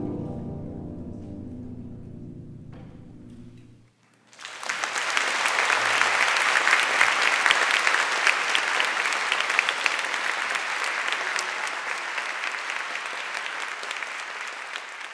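A guzheng ensemble's final chord rings and dies away over about four seconds. After a brief silence, the audience breaks into applause, which slowly fades toward the end.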